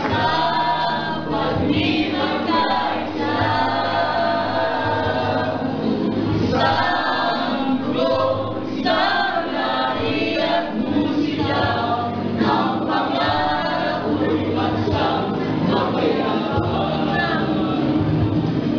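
Music with a choir of voices singing, going on without a break at a steady loudness.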